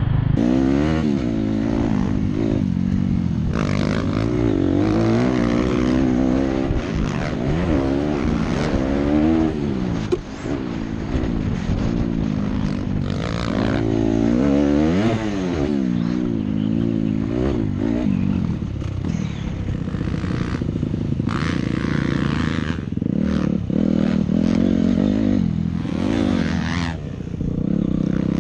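Motocross dirt bike engine revving up and down again and again as the rider accelerates, shifts and slows through the track's turns, heard close from the bike, with the buffeting and clatter of riding over rough dirt.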